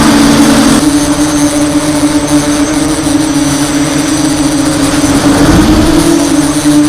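DJI F550 hexacopter's six brushless motors and propellers humming steadily in flight, with a brief rise in pitch and a burst of low rumble about five and a half seconds in.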